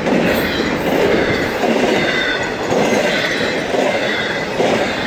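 Florida East Coast intermodal freight train's cars rolling past at close range: a continuous clatter of steel wheels on rail that swells about once a second as car after car goes by.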